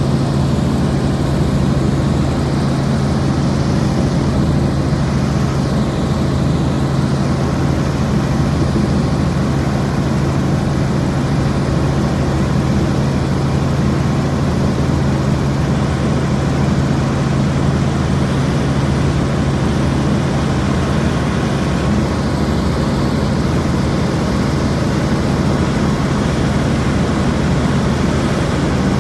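Helicopter engine and rotors running steadily in flight: a constant drone with a strong low hum that holds the same pitch throughout.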